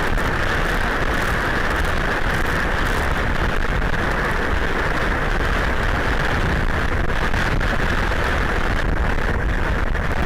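Hurricane wind and heavy rain: a loud, steady rushing noise with a deep rumble of wind on the microphone.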